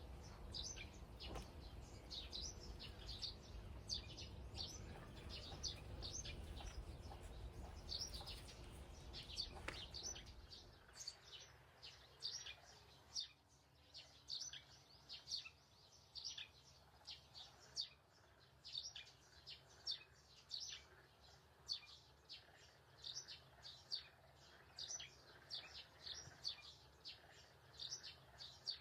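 Birds chirping steadily in short, high calls, several a second. A low rumbling noise lies beneath them for the first ten seconds or so, then stops.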